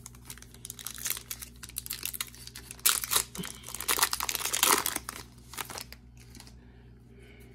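Foil wrapper of a baseball card pack crinkling and tearing as it is ripped open by hand, the crackling loudest a few seconds in and dying away about a second before the end.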